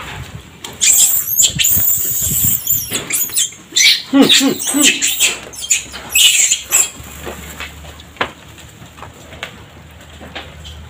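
Long-tailed macaques screeching and squealing as they scuffle over food: long shrill screeches in the first few seconds, a quick series of short falling calls about four seconds in, another screech about six seconds in, then dying down.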